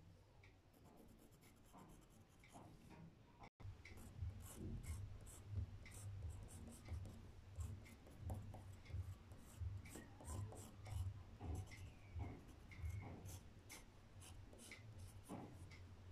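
Staedtler Noris colour pencil scratching on black paper in short, repeated strokes, faint, with a brief cutout about three and a half seconds in, after which the strokes are louder.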